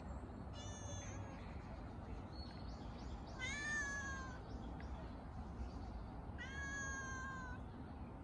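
Grey-tabby-and-white street cat meowing three times as a greeting to its feeder, each call lasting about a second; the first is faint and the middle and last are the loudest. A low, steady background rumble runs underneath.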